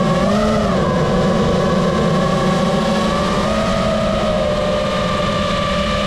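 Brushless motors and propellers of an iFlight Nazgul 5 FPV quadcopter whining steadily, heard from the onboard camera. The pitch rises and falls briefly about half a second in and steps up slightly a little past halfway.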